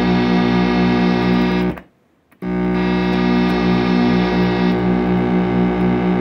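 Several DIY synthesizer VCO outputs sounding together through a mixing desk: a dense, distorted-sounding drone chord with a regular pulsing beat. It cuts out abruptly about two seconds in and comes back half a second later, then gains a brighter, hissier edge for a couple of seconds.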